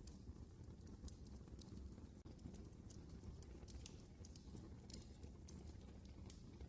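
Wood fire crackling in a fireplace: faint, irregular snaps and pops several times a second over a low, steady rumble of the flames.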